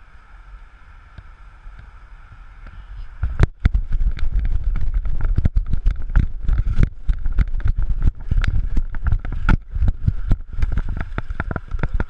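Wind rushing over a camera mounted on a training hang glider, at first steady and low. About three seconds in, as the glider is run down the hill, it breaks into loud, irregular buffeting and rattling of the glider's frame and mount.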